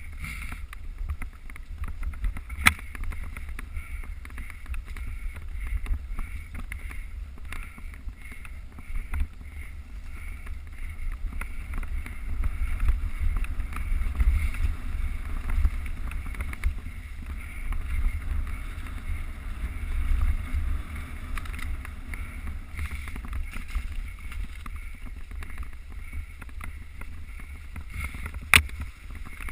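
Wind rumble and riding noise picked up by a GoPro on a mountain bike moving along a trail, with two sharp knocks, one about three seconds in and one near the end.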